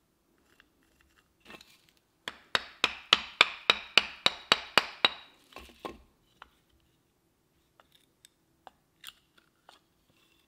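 A carving chisel being struck into dry oak: about a dozen sharp taps in quick succession, roughly four a second, starting a couple of seconds in and stopping about three seconds later, followed by a few faint clicks.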